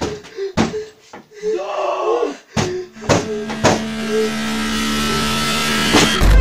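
Heavy banging on a wooden door, several knocks about half a second apart with a voice between them. Then a rising swell of noise with a steady hum builds for about three seconds and ends in a sharp hit near the end.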